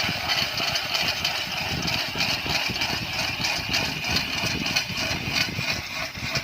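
A powered ice auger bores a hole through sea ice. Its motor runs steadily under load as the blades cut through the ice.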